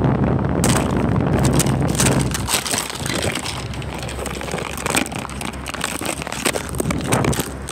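Plastic toy pieces and figures being handled right at the microphone, clattering and scraping with crackly knocks. A heavy low rumble in the first two seconds drops away, leaving the rustling and clicking of handling.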